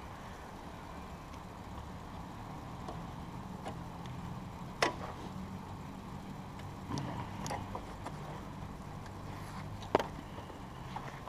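Two sharp clicks about five seconds apart, with softer rustling and handling noises between, from gear being unfastened on a motorcycle's rear seat and luggage rack. A low steady hum runs underneath.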